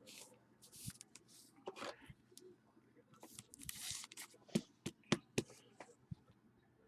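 Faint handling of trading cards: cards sliding and rustling against each other, with small clicks and short papery swishes.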